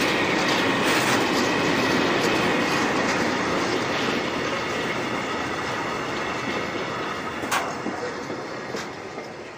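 Freight train of open-top coal wagons rolling past on the next track, wheels clattering over the rail joints with scattered clacks and one sharp strike near the end. The sound grows fainter over the last few seconds as the tail of the train passes and draws away.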